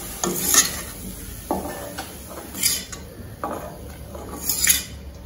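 Perforated steel ladle scraping the bottom of a black kadai and clinking against a stainless steel bowl as a dry cauliflower stir-fry is scooped out: a handful of separate scrapes and taps.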